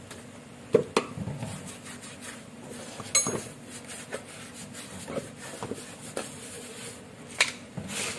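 Metal brake drum being scrubbed and handled while it is washed: a handful of sharp metallic clinks and knocks at uneven intervals, the loudest about a second in, around three seconds in and near the end.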